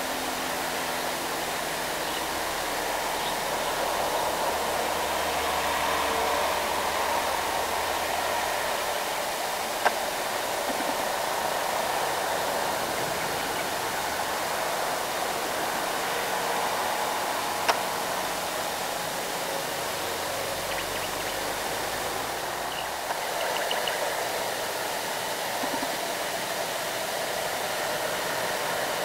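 Steady rushing noise of heavily loaded trucks passing on a road, with two sharp clicks, about ten and eighteen seconds in.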